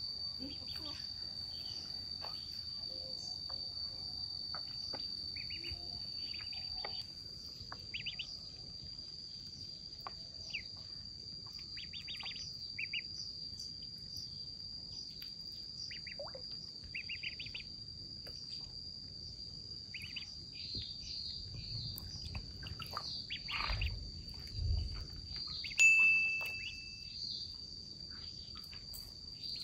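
Ducklings peeping in short, scattered chirps over a steady high-pitched insect trill. Near the end comes a louder, briefly held chirp, just after a few low thumps.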